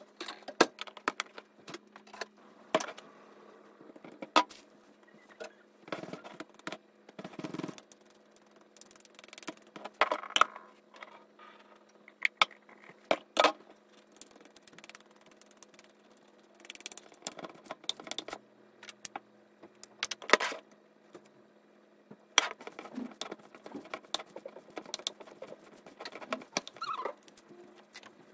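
Kitchen handling sounds: a wooden pestle tapping and clinking against a glass mixing bowl while cooked taro is mashed, in irregular sharp knocks with softer scraping between them.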